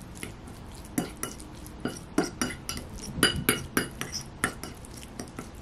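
Metal fork stirring and mashing flaked sardines in a bowl. Its tines clink irregularly against the bowl, two or three times a second, from about a second in.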